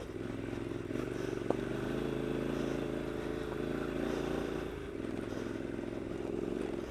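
2015 Triumph Scrambler's 865 cc parallel-twin engine running steadily at low revs off-road, easing off briefly about five seconds in. A single sharp click about a second and a half in.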